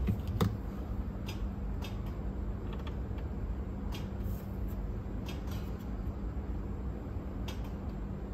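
Scattered light clicks and taps of small hand tools working on a cassette deck during repair, over a steady low hum.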